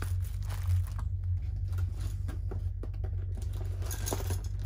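Light rustling and small clicks of a packaged bar of soap being handled and set down on a table, over a steady low rumble from road work machinery.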